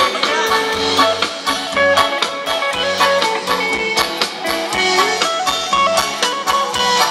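Live band playing an instrumental passage of a Thai ramwong dance tune: guitar melody over a steady drum-kit beat.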